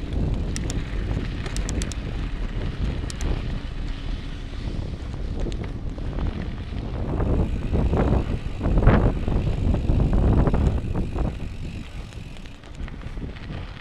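Mountain bike riding over a dry dirt trail: wind buffeting the microphone over tyre rumble, with a few sharp rattling clicks from the bike in the first few seconds. The rumble grows louder for a few seconds in the middle, then eases off near the end.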